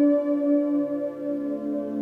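Ambient music of slow, sustained ringing tones like singing bowls, layered into a chord whose lower notes shift about half a second in.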